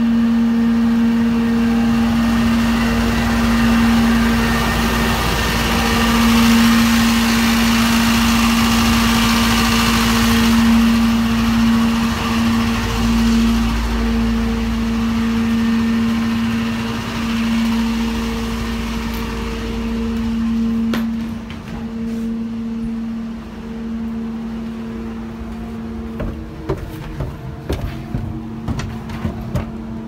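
Truck-mounted duct-cleaning power vacuum running: a steady hum under a loud rush of air. About twenty seconds in, the rush falls away, leaving the hum and a scatter of clicks and knocks.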